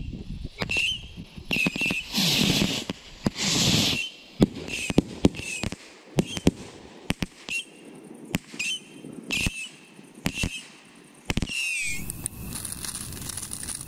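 Fireworks going off: a rapid, irregular run of sharp bangs mixed with short high whistles. Near the end a firework fuse is lit and hisses steadily.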